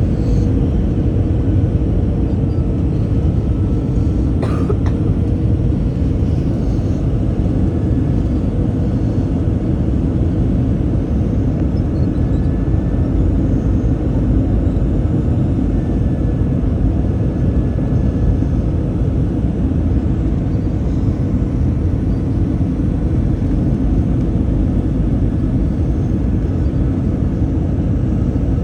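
Steady low rumble of an Airbus A321-200 airliner in flight, even in level throughout, with a faint steady hum over it. A single short click sounds about four and a half seconds in.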